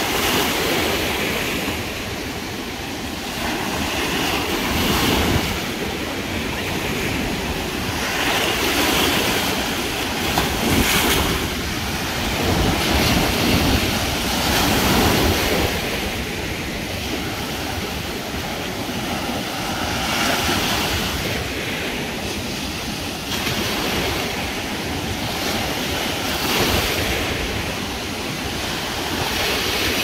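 Small surf waves breaking and washing up a sandy beach, a continuous wash that swells and eases every few seconds.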